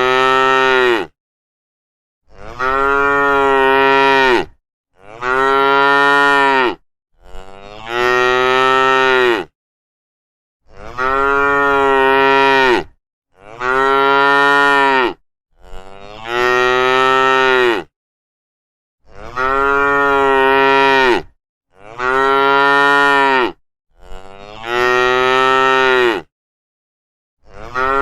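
Cows mooing over and over: about ten long, steady moos of roughly two seconds each, separated by short silent gaps.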